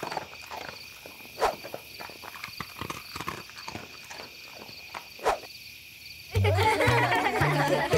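Scattered light clicks and taps, three of them louder, over a faint steady high-pitched tone. Music with low stepping notes comes in about six seconds in.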